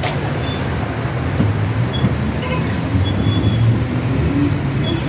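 Street ambience dominated by a steady rumble of road traffic, vehicles running along the street.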